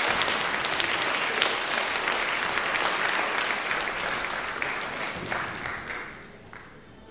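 Theatre audience applauding, the clapping dying away about six seconds in.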